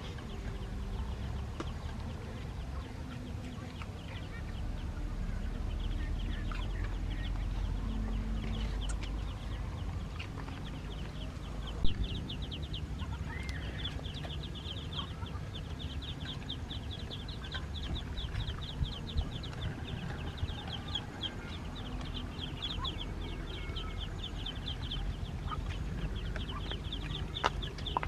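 Chickens clucking, with a fast run of high-pitched chirps from about ten seconds in, and a few sharp clicks over a steady low rumble.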